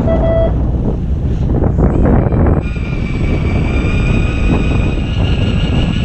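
Electric fishing reel's motor whining steadily as it winds in line, starting about two and a half seconds in and edging slightly up in pitch, over a constant low rumble with wind on the microphone. A short beep sounds right at the start.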